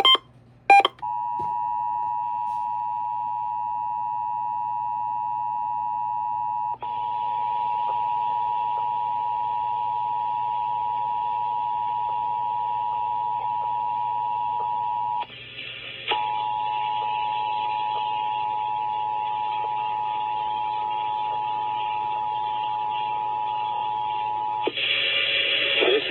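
Emergency Alert System two-tone attention signal (853 and 960 Hz sounded together) carried over FM radio for a Required Monthly Test: a steady, loud dual-pitched tone following two short data bursts at the start. Hiss joins about seven seconds in, the tone drops out briefly about fifteen seconds in, and it cuts off near the end.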